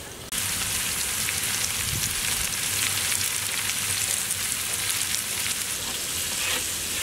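Chopped vegetables (cauliflower, potatoes, carrots, beans and peas) sizzling as they fry in a large aluminium pot, stirred with a wooden spatula. The sizzle starts abruptly just after the start and then runs on steadily with a fine crackle and a few soft knocks.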